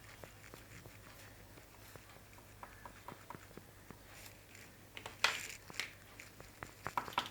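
Oil pastel stroking and tapping on paper: faint scratchy rubbing with scattered small ticks, a sharper click about five seconds in and quicker clicks near the end.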